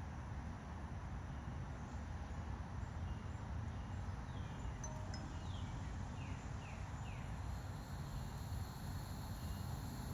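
A songbird singing short downward-slurred whistles in small groups of two or three, over a steady low rumble.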